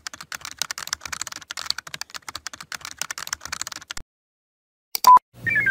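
Fast typing on a computer keyboard, a dense run of key clicks that stops after about four seconds. About a second later comes a brief electronic beep, and music with a falling run of synth notes starts right at the end.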